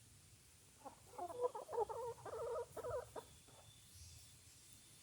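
Backyard chickens clucking, a quick run of calls from about one to three seconds in.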